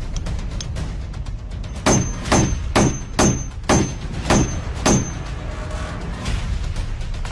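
Background music with a steady low bed, and a run of seven loud, sharp knocks about half a second apart in the middle.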